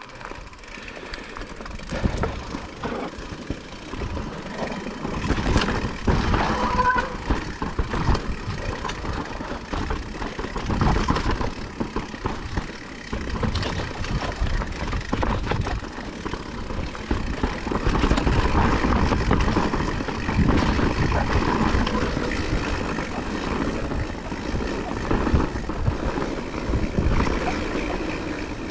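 Blizzard wind buffeting the microphone: a loud, gusting rumble that swells and eases throughout.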